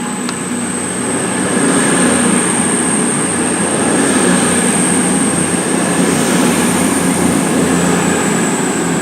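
CrossCountry Class 221 Super Voyager diesel multiple unit pulling out under power, its underfloor diesel engines running hard as the coaches pass. The sound grows louder over the first two seconds and then holds steady, with a thin high whine over it.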